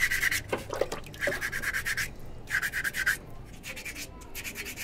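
Hand wet-sanding a small carved stone with a piece of sandpaper: quick back-and-forth scratchy strokes in bursts of several a second, with short pauses between bursts, fainter toward the end.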